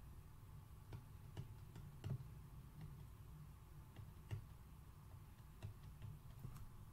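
Faint, irregular ticks and taps of a stylus on a tablet screen during handwriting, over a low steady hum.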